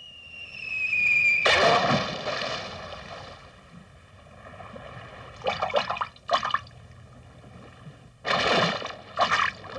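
Cartoon sound effects: a short falling whistle, then a big water splash that fades over about two seconds, followed by two clusters of shorter splashing sounds.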